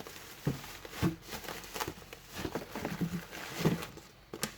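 Handling noise from parts being rummaged out of a box: irregular knocks and clicks with rustling, about a dozen over the stretch.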